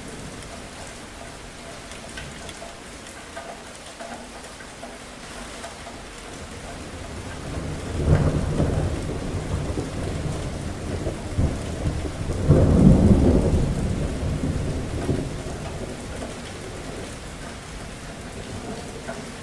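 Steady rain falling during a thunderstorm, with two rolls of thunder. The first rumbles up a little before halfway, and a louder one follows a few seconds later, each fading slowly.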